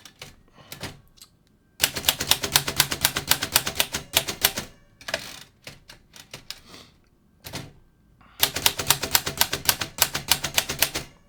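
Remington Rand Deluxe Model 5 manual portable typewriter being typed on: a few scattered key strikes, then two fast runs of type bars hitting the platen, one starting about two seconds in and lasting about three seconds, the other from about eight seconds in almost to the end.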